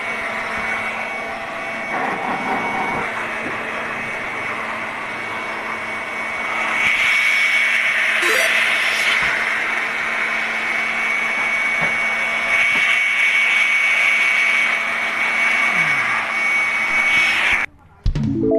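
Electric air blower running with a steady high whine, blowing off air conditioner parts during cleaning. It gets louder about seven seconds in and cuts off abruptly near the end.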